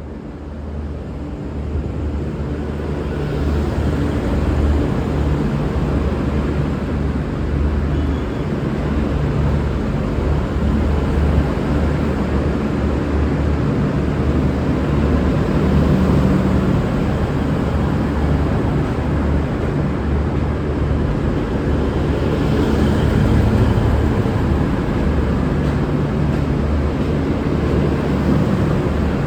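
Diesel engines of a V/Line VLocity diesel multiple unit running under power as the train pulls out. The deep engine rumble grows louder over the first few seconds and then holds steady.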